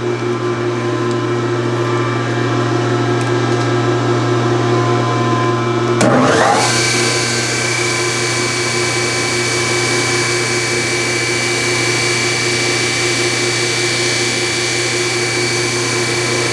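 Bench grinder motor running with a steady hum. About six seconds in, a freshly turned pin is pressed against the grinder's wire brush wheel to clean it up, which adds a steady hiss and a high whine.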